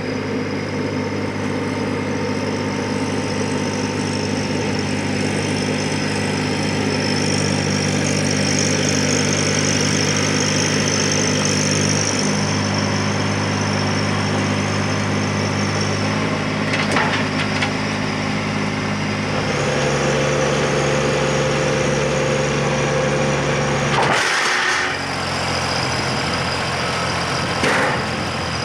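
An engine running at a steady speed, its note shifting to a new pitch a couple of times, with a few short knocks.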